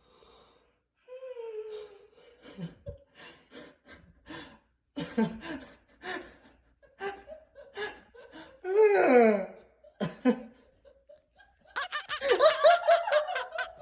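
A person laughing in fits of short breathy bursts, with a loud laugh falling in pitch about nine seconds in and a harder run of laughter near the end.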